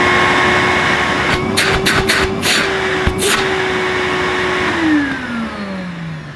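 Numatic Henry Hound vacuum cleaner motor running loud and steady with a high whine on a first power-up test. A few short clicks come in the middle, then the motor is switched off and winds down, its whine falling in pitch.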